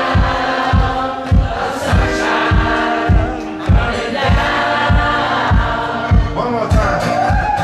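Live acoustic performance: two acoustic guitars strummed while male voices sing over a steady low beat, about two beats a second.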